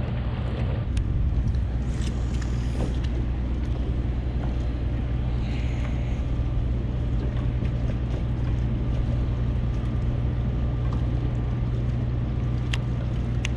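Boat motor running steadily, a low drone, with a few sharp clicks near the end.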